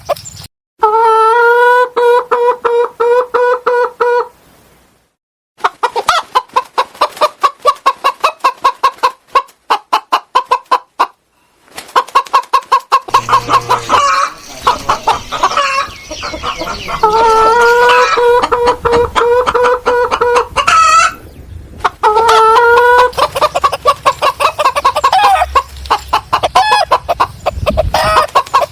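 Chickens clucking in rapid runs of short calls, broken by several long, held crowing calls, with a couple of brief pauses.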